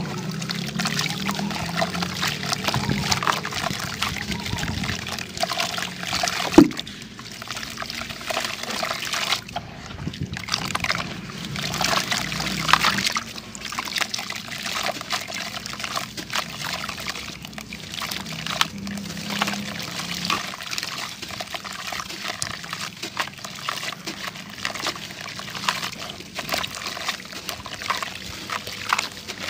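Soaked crumbly sandy dirt being squeezed apart by hand, with wet crumbs and water dribbling and splashing back into a bucket of muddy water. One sharp knock about six and a half seconds in.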